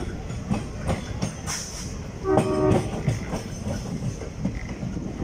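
Passenger train running along the track, heard from a coach: a steady rumble with wheels clicking over rail joints. About two seconds in, a short horn note sounds from the hauling ALCo WDM3A diesel locomotive.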